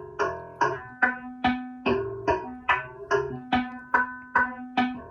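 Buchla 200 modular synthesizer playing a steady train of short plucked notes, about two and a half per second, each striking sharply and dying away. Pitch and tone shift from note to note.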